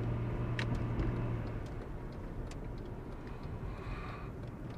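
Car cabin noise while driving: a steady engine and road rumble, its low hum dropping away about a second and a half in.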